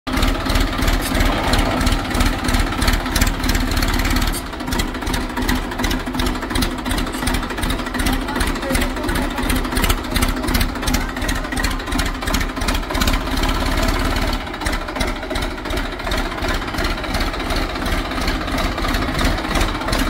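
Massey Ferguson 1035 DI tractor's three-cylinder diesel engine idling steadily, with a rapid even beat.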